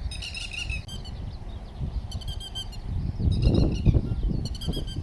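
Short rapid series of high chirping calls, repeated several times, over a steady low rumble that swells louder about three and a half seconds in.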